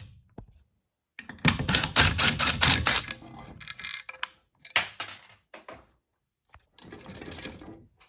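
Impact driver hammering in rapid clicking bursts as it backs out the mounting screws of a wall-mounted fire alarm horn strobe: one long burst about a second in and a shorter one near the end, with a few loose clicks and a knock between them.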